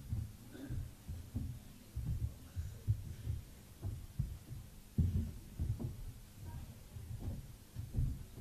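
Footsteps on a stage floor picked up by the stage microphones: irregular dull thuds, about one or two a second, over a faint steady hum.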